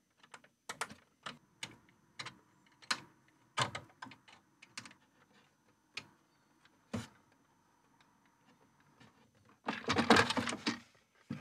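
Irregular light clicks and taps of hands and a screw being worked inside a Bambu Lab X1C 3D printer's enclosure near the toolhead, as a part is unscrewed. The clicks come several a second at first and sparser later, with a short burst of rattling clatter about ten seconds in.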